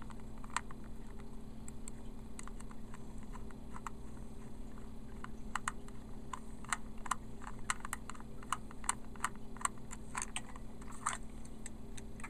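Small screwdriver turning the battery-cover screw on the underside of a plastic Trackmaster toy engine: irregular light clicks of the tip in the screw head and against the plastic. A low steady hum runs underneath.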